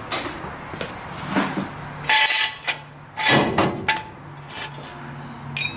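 Metal clanks and clinks from a steel ratcheting jack stand being set down on a concrete floor and its post pulled up under the bumper, with loud ringing clanks about two seconds in and again around three and a half seconds, and a lighter click near the end.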